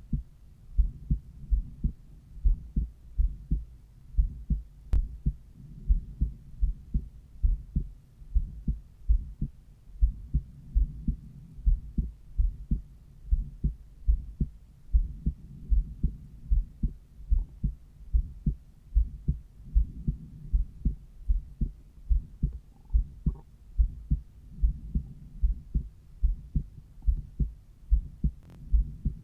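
Human heartbeat heard through a cardiology stethoscope over the pulmonary valve area: a steady, regular rhythm of dull, low thuds.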